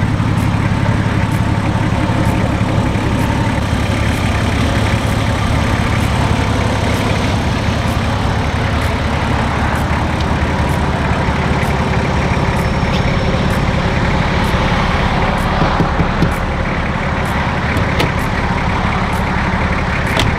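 Nissan Patrol Y61's 2.8-litre turbo-diesel engine running steadily as the vehicle drives along, a continuous low drone.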